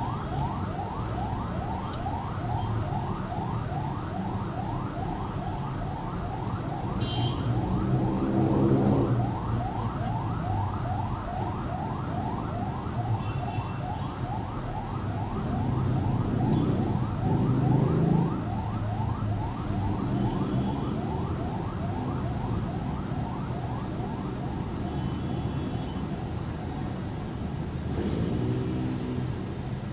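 Ambulance siren in a fast yelp, rising sweeps repeating about three times a second, fading as it pulls away, heard from inside a car over the low rumble of traffic. Engine rumble swells twice, about nine and eighteen seconds in.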